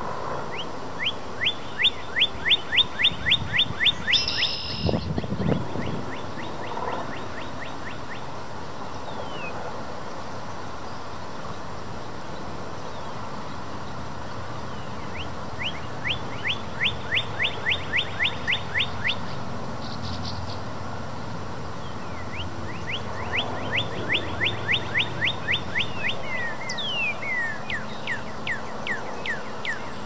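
Male northern cardinal singing from a treetop: phrases of quick, clear, downward-slurred whistles, about four notes a second, repeated several times with pauses between phrases. A steady low background hum runs underneath.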